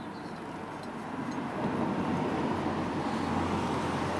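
A motor vehicle running, a steady rumble with a low hum that grows louder about a second and a half in and then holds steady.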